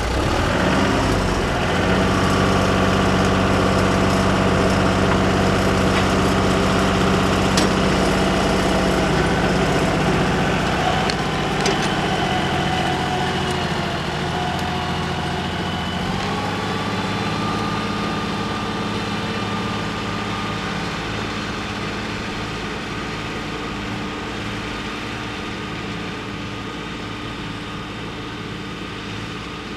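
Tractor engine running just after being started, a steady engine note that grows gradually fainter through the second half as the tractor moves off pulling the subsoiler.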